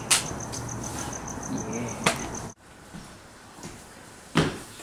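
Crickets chirping in a fast, even pulse, with a sharp slap at the start and another about two seconds in. The chirping cuts off suddenly to a quieter room tone, and two sharp knocks sound near the end.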